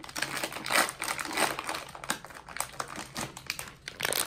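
Crinkly packaging being handled and opened by hand: a fast, irregular run of crackles and rustles.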